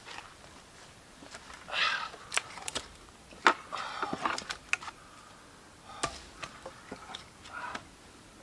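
Wooden knocks and scraping as split logs are handled and set on a chopping block: a few sharp clacks with short scraping rustles between them, no full axe strike.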